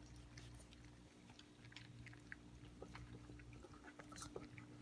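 Four-week-old Labrador retriever puppies eating wet puppy food from stainless steel bowls: faint, irregular chewing with scattered small clicks, over a steady low hum.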